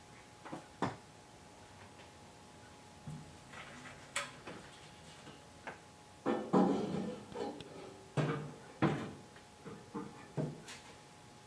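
Irregular metal clunks, knocks and scraping as a steel bed rail is handled and set in place on a pickup's sheet-metal bed floor, loudest in a clatter about six and a half seconds in.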